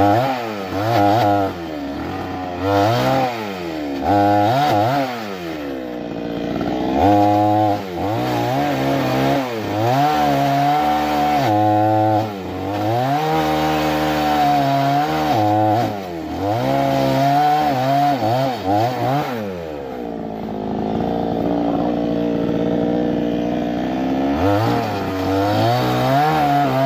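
Two-stroke Newwest chainsaw with a 22-inch bar cutting into a fallen sonokeling (Indian rosewood) log, its engine pitch rising and falling over and over as the throttle is worked through the cut. About three-quarters of the way through it settles to a lower, steadier run for a few seconds, then revs up again near the end.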